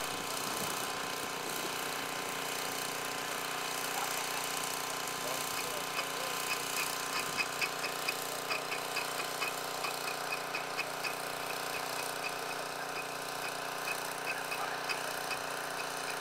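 Lure coursing machine running: a steady motor hum, joined from about six seconds in by rapid, uneven clicking as the lure line is pulled through its pulleys.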